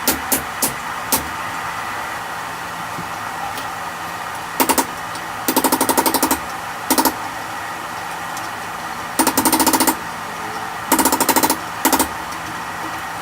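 Several short bursts of rapid mechanical hammering, over a dozen evenly spaced strokes a second, with a few single clicks at the start, over a steady hum.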